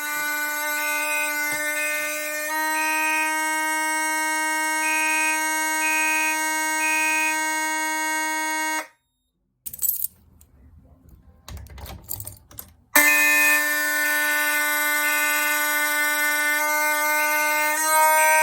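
Fire alarm horns sounding together during a system walk test. A steady, continuous horn tone runs under a second device beeping in groups of three (code 3). The alarms cut off abruptly about 9 seconds in, leaving a few seconds of faint clicks, then start again about 13 seconds in.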